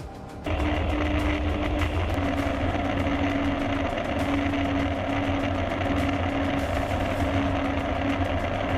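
An engine running steadily, with a low rumble and a held hum. It cuts in suddenly about half a second in.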